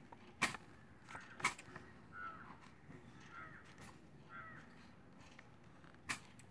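A bird in the background gives three short calls about a second apart. A few sharp clicks come around them, the loudest near the end.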